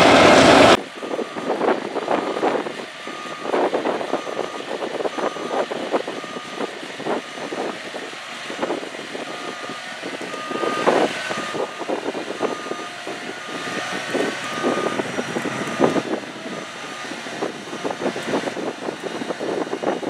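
An Albach Diamant 2000 self-propelled wood chipper is heard chipping loudly for under a second before the sound cuts off abruptly. After that the machine runs, with a warning beeper giving short beeps a little under once a second and frequent clicks and clatter.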